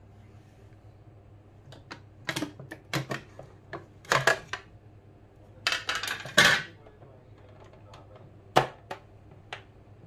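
Plastic and metal clicks and clatters of a Kenwood stand mixer being handled after switching off: the clear plastic pouring shield comes off the bowl and the mixer head is raised, lifting the balloon whisk out of the whipped eggs. The clicks come in small clusters, the loudest clatter about two thirds of the way through, with a faint hum underneath.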